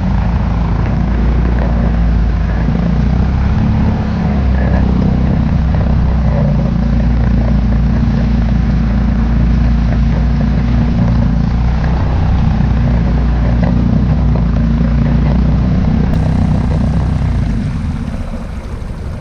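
A vehicle moving under engine power, a steady low rumble that eases off about eighteen seconds in as it slows to a stop.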